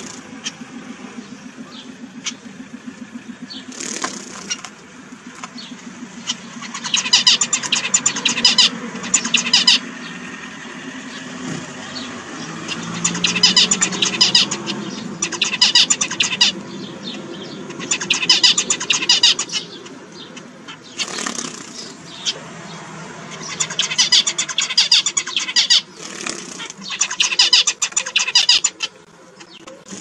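Male zebra finch singing: about five bouts of its fast, buzzy song a few seconds apart, over a low steady hum.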